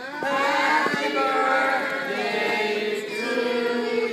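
A group of people singing together, several voices holding and changing notes at once.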